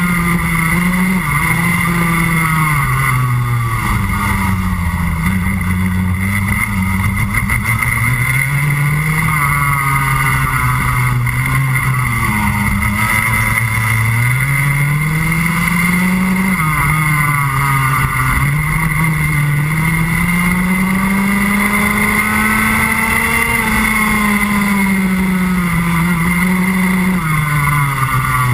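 Junior Rotax 125 cc two-stroke kart engine at racing speed, its pitch climbing along the straights and dropping off as it slows into corners, again and again.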